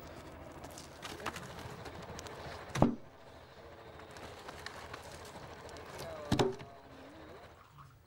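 Two wooden thuds of pine logs thrown down onto a pile, about three and a half seconds apart, over a faint steady background.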